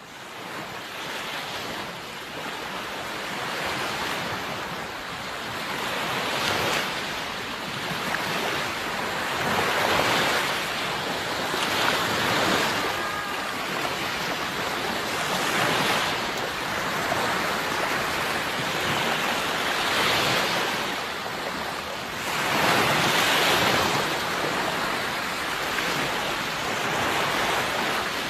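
Sea surf washing in continuously, swelling and ebbing as waves break every few seconds.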